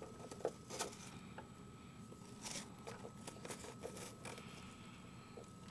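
Faint scattered clicks and a short rustle, handling noise, over a faint steady high-pitched hum.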